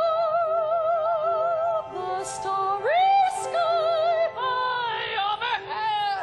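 A woman singing in an operatic style: long held notes with a wide, wobbling vibrato, a swooping rise to a new note about three seconds in, and shorter phrases near the end.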